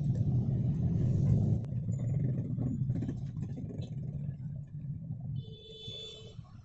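A low, steady rumble, loudest at first and fading away over the first few seconds, with a few faint clicks from handling the opened drill's plastic housing and power cable. A short high-pitched tone sounds near the end.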